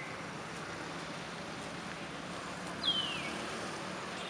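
A baby macaque's short high squeal, falling in pitch, once about three seconds in, over a steady background hiss.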